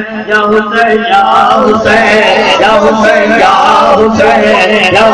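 Many men's voices chanting and singing together in an Urdu devotional recital (manqabat). The reciter's long held note breaks off at the start, a few sharp knocks or cries come in the first second, and then the crowd sings along.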